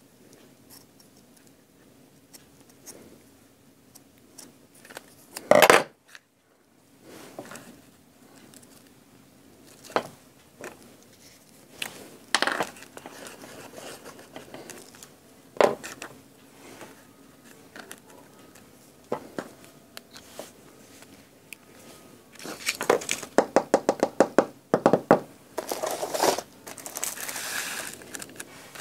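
Craft supplies being handled on a tabletop: scattered taps, knocks and scrapes, with one loud knock about six seconds in. Near the end comes a fast run of small clicks, then rustling.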